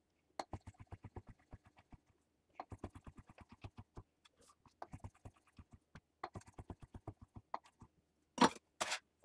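Chef's knife slicing shiitake mushroom caps on a wooden butcher-block board: runs of quick, light taps, about ten a second, with short pauses between runs. Near the end come two louder scraping swipes as the blade is slid across the board under the slices.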